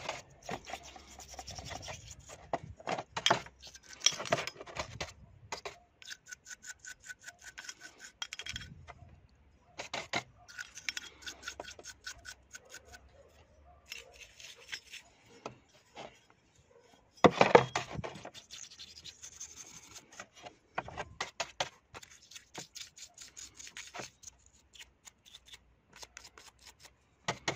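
A small bristle brush scrubbing the aluminium body of a GM12F carburettor soaked in extraction petrol, in short, irregular scratchy strokes, as the carburettor is washed clean. About seventeen seconds in there is one louder knock.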